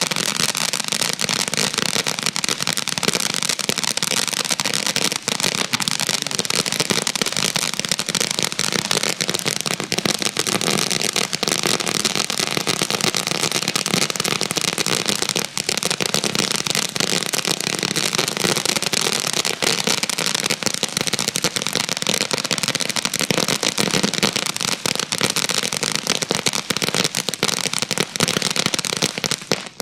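Black Cat Firecracker Barrage consumer firework going off: a dense, continuous crackle of rapid small pops.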